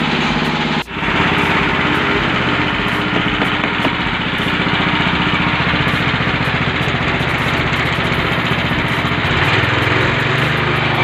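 Small engine powering a mini rice mill, running steadily. The sound cuts out for a moment about a second in, and the engine speed picks up slightly near the end.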